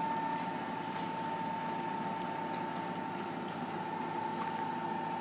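Bridgeport Explorer X-26 CNC vertical mill's spindle running steadily at 200 RPM: an even mechanical hum with a steady high whine over it.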